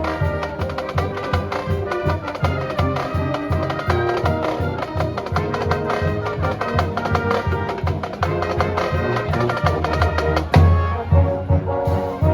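School wind band playing an upbeat piece, brass carrying the tune over a steady drum beat, with a heavy full-band accent about ten seconds in.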